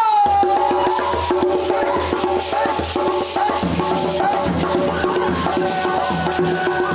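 Djembe hand drums beating a quick, steady dance rhythm, with a voice singing a melody over them.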